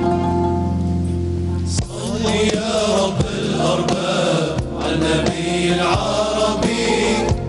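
Algerian religious chant (inshad) performed by a male choir with a band: a chord held steady for about the first two seconds, then the voices chanting together over the instruments, with a few drum strokes.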